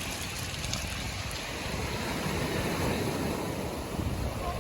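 Sea surf washing on the beach, a steady rushing noise, with wind rumbling on the microphone.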